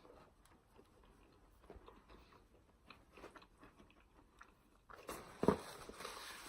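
Close-miked chewing and mouth sounds of someone eating fast food: soft wet clicks and smacks, with a louder bite or smack about five and a half seconds in.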